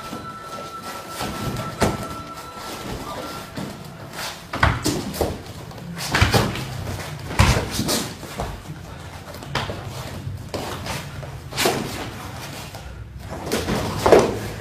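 Two people sparring bare-footed on gym floor mats: a scattered series of sharp thuds and slaps from blows, blocks and stamping feet, the loudest a little past the middle.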